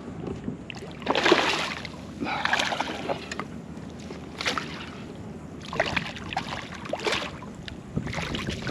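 Water splashing in several irregular bursts, over a steady background of wind and water.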